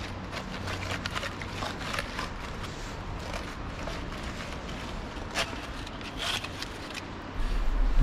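River water running steadily, with a few short knocks and scrapes.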